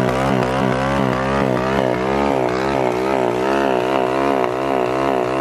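Loncin four-stroke single-cylinder pit bike engine running. Its pitch wavers up and down about two or three times a second. It is warming up after a cold start on oil that is too thick.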